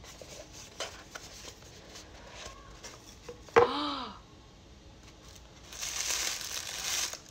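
A small cardboard gift box being handled and opened: light taps and rustles, then a sudden snap with a brief squeak about halfway through as the lid comes off. Near the end comes a second of paper crinkling as tissue paper is pulled out of the box.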